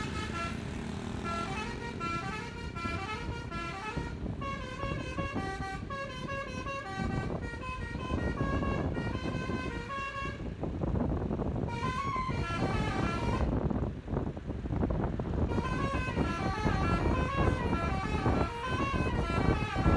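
Bus telolet air horn (an Alzifa multi-tone set) playing a stepping melody, breaking off briefly twice, over a steady road and engine rumble.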